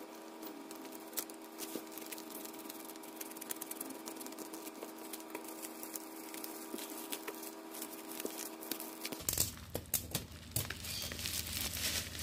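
Plastic bubble wrap crinkling and rustling as it is sliced with a utility knife and pulled apart, a stream of small crackles that gets louder about nine seconds in.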